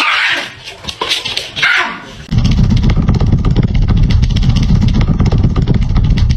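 A small dog yips twice in the first two seconds. Then a loud, low, rough rumble starts suddenly and carries on to the end.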